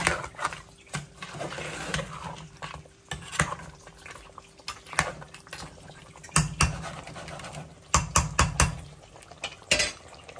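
Kitchen work sounds: metal utensils clinking and knocking against pots and dishes in irregular strokes, with a quick run of knocks about eight seconds in, over some water or liquid sound.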